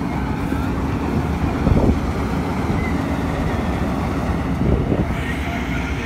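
Diesel engines of a New Holland 3630 tractor and a combine harvester running steadily side by side at close range: an even, unbroken engine rumble.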